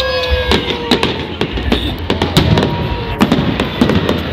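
Fireworks display: a rapid string of bangs and crackling bursts over a steady low rumble.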